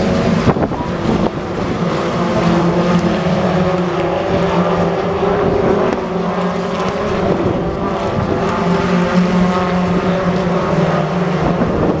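A pack of BTCC touring cars at racing speed through a corner. Several turbocharged 2.0-litre four-cylinder engines run at once, their notes rising and falling as the cars pass and change gear.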